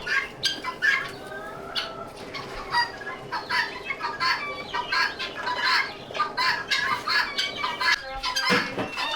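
A flock of chickens clucking and calling over one another, many short calls at once, over a steady low hum.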